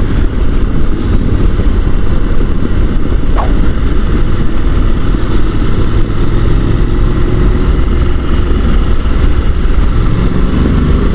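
Honda NC750 motorcycle's parallel-twin engine running at a steady riding pace, mixed with heavy low wind rumble on the rider's microphone.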